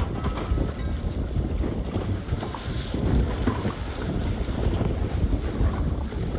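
Wind buffeting the microphone over water splashing and rushing along the side of a boat's hull as it moves through choppy sea.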